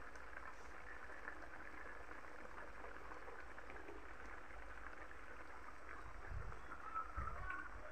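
Beef stew with potatoes and carrots simmering in a wok on a gas stove, a faint steady bubbling hiss. A few low bumps come near the end.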